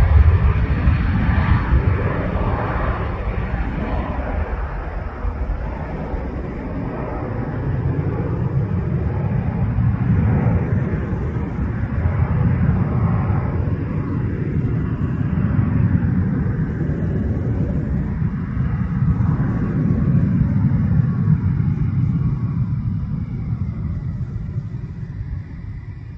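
Jet noise from a Dassault Falcon 900B's three Honeywell TFE731-5BR turbofans at takeoff power as the jet climbs away. A deep rumble, loudest at the start, fades slowly as the higher tones thin out.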